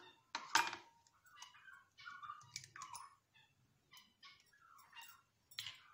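An egg is knocked once on the rim of a glass bowl about half a second in: a sharp crack with a brief ring from the glass. Faint small clicks and rustles follow as the shell is pulled apart and the egg drops into the bowl.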